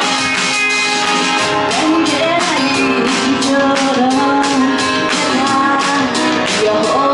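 A woman singing a pop song live into a handheld microphone over instrumental accompaniment with a steady beat; her voice comes in about two seconds in.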